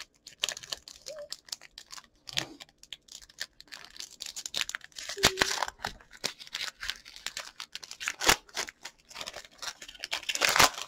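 A Pokémon Sword and Shield booster pack's foil wrapper being torn open and crinkled by hand, in irregular crackles and small rips, loudest about ten seconds in.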